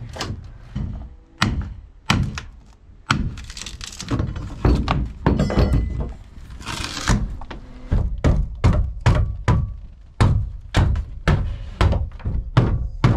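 Repeated heavy thunks of a hand tool striking timber as rotten transom wood is knocked out of a fibreglass boat hull. The blows are irregular at first, then fall into a steady run of about two a second from about eight seconds in.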